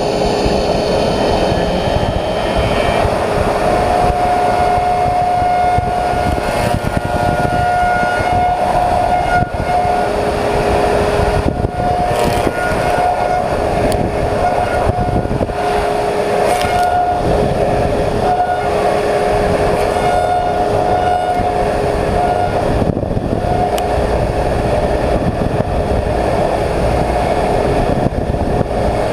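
Slab surfacing machine's cutter head with six insert knives running as it surfaces a willow slab: a loud, steady machine noise with a steady high whine.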